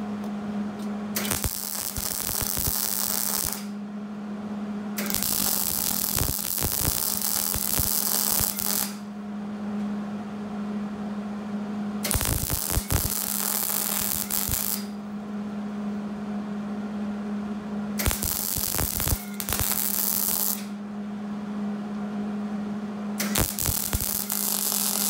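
Wire-feed (MIG) welder arcing on steel square tubing: five runs of crackling, hissing arc, each two to four seconds long, with short pauses between them over a steady hum.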